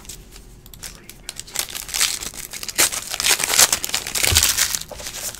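Trading-card pack wrapper crinkling and tearing as a pack is opened: a dense run of rustling and crackling, loudest from about two to four and a half seconds in.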